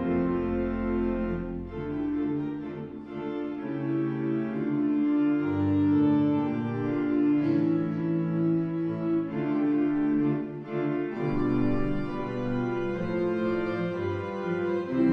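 Organ music playing held chords that change every second or two.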